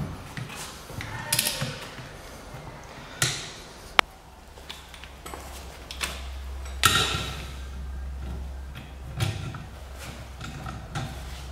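Irregular metal clinks and knocks from a steel three-jaw gear puller, adjustable wrench and ratchet being handled against a BMW E39 rear wheel hub. A sharp ping comes about four seconds in, and the loudest clank about seven seconds in.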